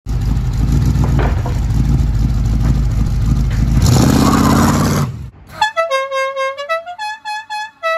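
Classic car's engine running with a loud rumble, revved about four seconds in, then stopping. A musical horn follows, playing a short tune: a held low note, a rise, then several short higher notes.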